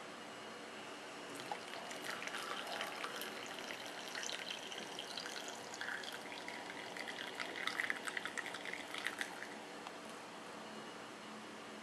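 Tea being poured through a stainless steel mesh strainer into an enamel mug: a soft trickle and splash that starts about a second and a half in and stops about nine and a half seconds in.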